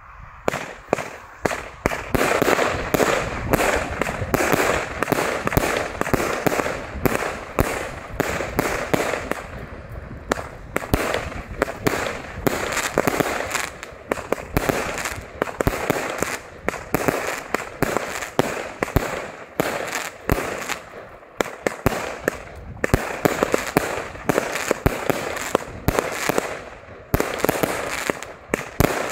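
Harald Nyborg 'Operaen' consumer firework battery, 104 shots in 23 mm tubes, firing: a dense, unbroken volley of launches and aerial bursts, several shots a second, that starts abruptly.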